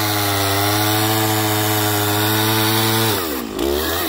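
Two-stroke gas chainsaw running at high speed as it cuts through a log. The engine speed holds steady, then about three seconds in it drops sharply and runs low and uneven near the end.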